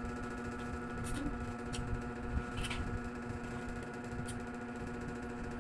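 Chewing and mouth sounds while eating, with a few short sharp clicks, over a steady background hum.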